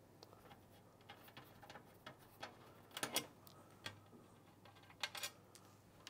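Faint, scattered clicks and taps from hands working on a PC case's front panel and its plastic clips, with a couple of louder knocks about three and five seconds in.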